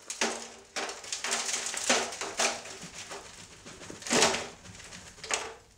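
Shop debris (metal scraps, bits of cut pipe and steel, swarf, wood chips and paint flakes) rattling and sliding as a plastic 5-gallon bucket is tipped and emptied into a foil pan, with a louder clatter about four seconds in.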